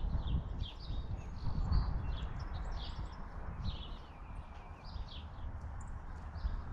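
Small birds chirping in quick repeated short calls, over a steady low rumble that is the loudest part of the sound.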